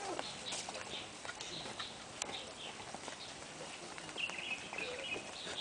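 Giant panda chewing and snapping bamboo stalks: scattered crackles and clicks.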